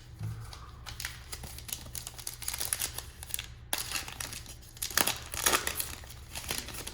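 A trading-card pack's foil wrapper crinkling and tearing open in irregular crackling bursts, loudest a little past the middle.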